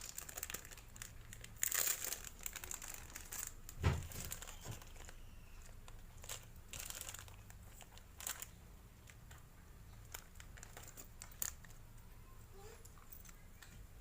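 Lure packaging crinkling and rustling as it is handled, with scattered clicks. A soft thump about four seconds in.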